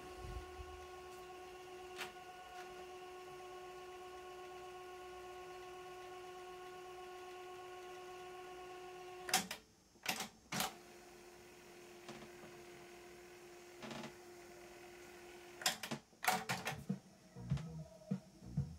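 Aiwa AD-F410 cassette deck winding tape at high speed with a steady motor whine. About nine seconds in, its transport keys clunk and it winds again more quietly; more key clunks follow, and near the end the tape starts playing music.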